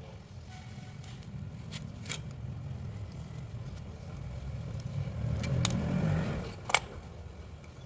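Scattered sharp metallic clicks and clinks, the loudest one near the end, over a low steady rumble that swells briefly before it.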